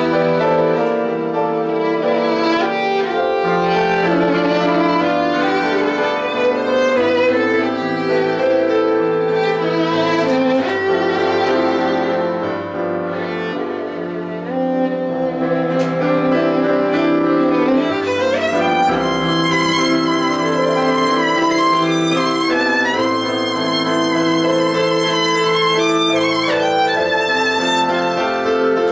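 Violin playing a melody with vibrato over an electronic keyboard holding sustained low chords.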